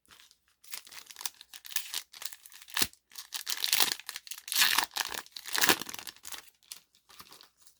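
Foil wrapper of a Yu-Gi-Oh! booster pack crinkling and being torn open by hand, a run of crisp rustles and tears lasting several seconds.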